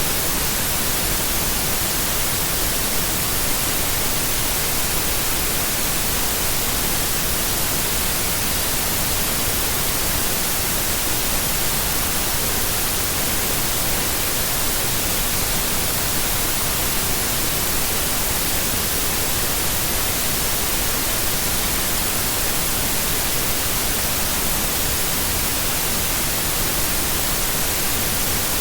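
Steady white noise: an even, unbroken hiss, strongest in the high end, with no change in level.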